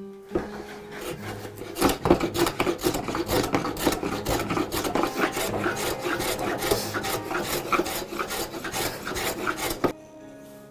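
Hand rasp scraping wood in quick back-and-forth strokes, shaping a wooden handle scale. The strokes stop suddenly near the end.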